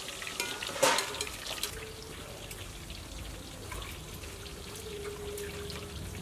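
Hot oil sizzling and crackling in a wok over a wood fire, with one sharp metal clatter about a second in.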